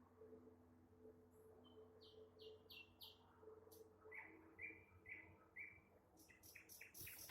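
Nightingale singing quietly: a set of four short descending notes, then four lower repeated notes, then a rapid run of sharp clicking strokes near the end.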